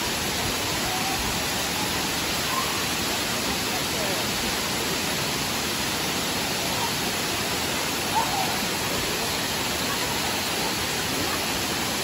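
Tall waterfall pouring steadily into its plunge pool: an even, unbroken rush of falling water.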